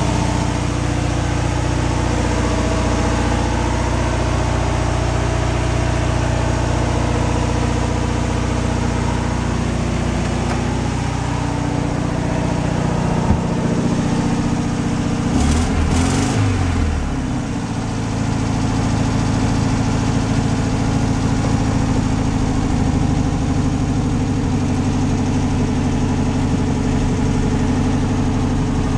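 Air-cooled flat-four engine of a 1960s VW Beetle idling steadily, with a brief rise and fall in engine speed about halfway through.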